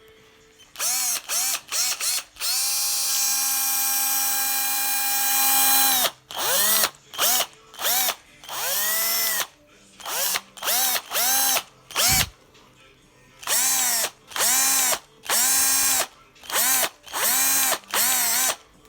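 INGCO drill-driver's motor being run in many short trigger pulls, each a whine that rises as the motor spins up and falls as it coasts down. One longer run of about four seconds near the start is held at a steady speed. A single low thump comes about two-thirds of the way through.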